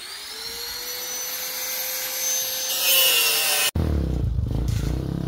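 Electric power tool starting up: its motor whine rises in pitch and then runs steady with a rough cutting noise. About three and a half seconds in, the sound breaks off abruptly into a lower rumbling sound.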